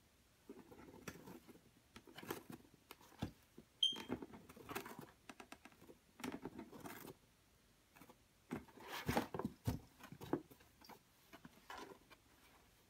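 Two cats play-fighting at a cardboard box: irregular bursts of scratching and rustling, with light knocks of paws and claws on the cardboard and carpet. A brief high squeak comes about four seconds in.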